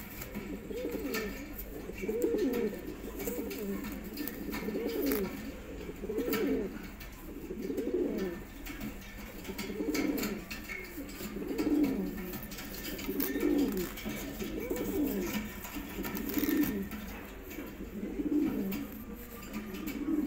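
Domestic fancy pigeon cooing over and over, a low rolling coo about every second and a half, typical of a male's courtship cooing to his hen.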